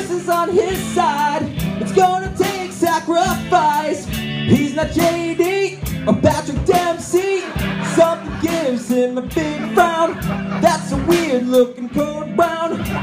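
A man singing into a microphone through a PA, over backing music with a beat.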